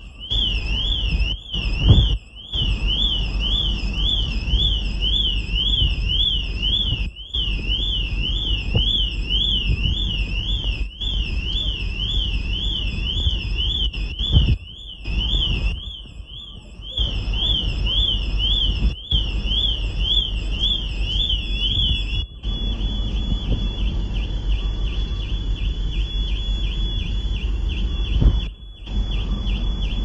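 Car alarm sounding: a loud warbling siren tone rising and falling about twice a second, which switches about three-quarters of the way through to a steady high tone. It is broken by a few brief drop-outs, over a steady low rumble.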